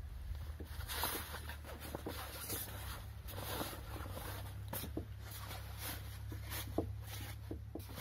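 Large, wet fabric gazebo canopy rustling and swishing as it is pulled and draped over the metal frame, with irregular soft knocks, over a steady low rumble.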